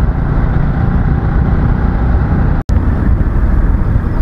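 Motorcycle on the move, heard from the rider's own microphone: a steady rush of wind and engine and road rumble. It cuts out for an instant a little over halfway through.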